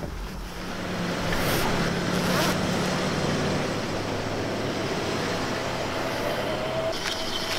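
A van's engine running, a steady low hum with road noise that grows louder about a second in.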